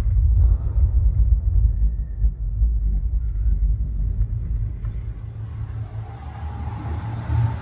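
Deep, steady bass rumble played through a 12-inch Pioneer dual-voice-coil subwoofer, growing gradually fainter toward the end.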